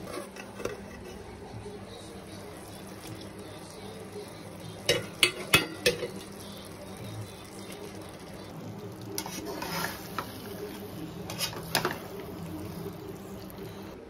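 A utensil clinking and scraping against a metal cooking pot while masala is stirred and chicken is added. There is a cluster of sharp clinks about five seconds in and more a few seconds later, over a steady low hum.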